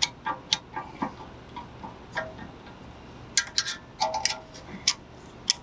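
Scattered sharp metallic clicks and clinks of a screwdriver tip against a Volkswagen Atlas rear brake caliper as it is worked loose from its bracket. Twice the metal rings briefly.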